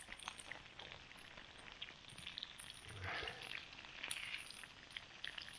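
Chicken breast, potatoes and eggs frying quietly in a pan over a campfire, a faint steady sizzle with small crackles and ticks from the fire. About three seconds in, a short louder sound as the food in the pan is stirred.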